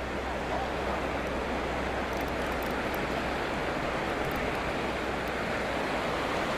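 Steady rush of shallow river water spilling over a concrete weir.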